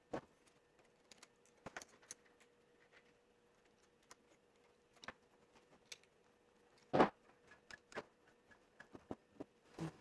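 Scattered small clicks and taps of steel pliers and a small metal alligator clip being handled over a wooden tabletop while a clip is crimped onto a wire, with a sharper knock about seven seconds in.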